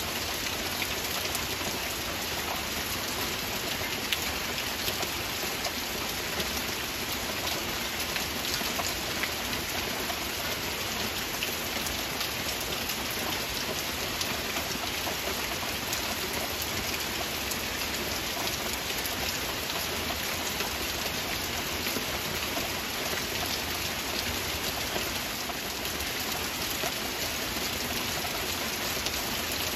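Steady heavy rain: an even, unbroken hiss of downpour made up of countless small drop impacts.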